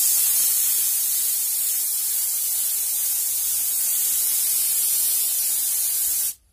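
Pneumatic spray gun spraying glue onto upholstery foam: a steady hiss of compressed air that starts abruptly and cuts off suddenly after about six seconds.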